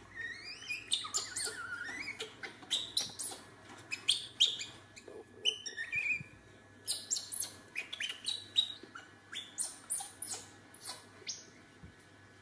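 Baby monkey squeaking in many short, very high-pitched chirping calls, some sliding up or down in pitch, coming in quick irregular bursts.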